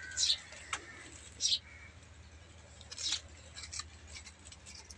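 Knife cutting into a raw potato held in the hand, chopping it small: several short, crisp cutting strokes about a second apart, with a few light clicks between.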